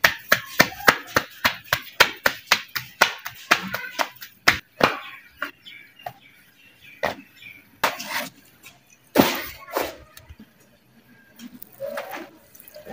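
Roti dough being slapped flat between the palms by hand, a fast run of sharp slaps at about four a second for the first five seconds, then scattered single slaps and knocks.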